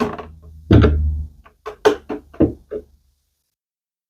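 A clamp being set on a dry-fitted wooden frame-and-panel assembly: about eight sharp knocks and clunks of metal and wood over three seconds, the loudest about three-quarters of a second in.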